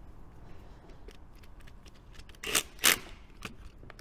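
A spanner working on a bell-housing bolt of an MGB engine-to-gearbox joint: faint light clicks of the tool, then two short, louder rattling bursts about two and a half seconds in.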